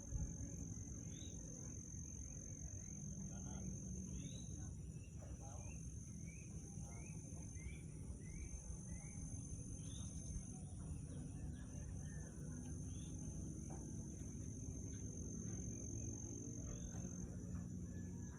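Insects, crickets or cicadas, keeping up a steady high-pitched drone. Birds give scattered short calls over it, including a run of short rising calls about two a second a third of the way in, over a steady low rumble.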